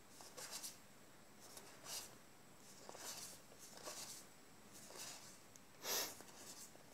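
Magic: The Gathering trading cards slid one at a time off one stack onto another in the hands: soft papery swishes about once a second, the loudest near the end.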